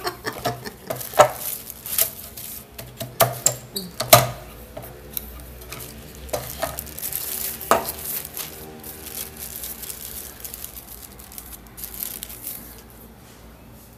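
Wooden tortilla press knocking and clattering as it is handled, with sharp knocks in the first few seconds. About twelve seconds in there is a brief crinkle of the plastic press sheets.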